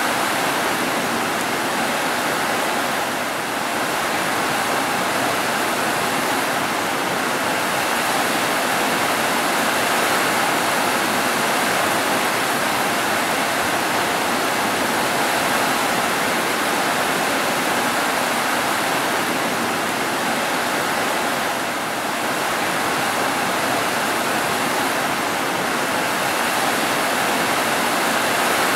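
Rain pouring steadily onto roofs, a dense even hiss that eases slightly twice.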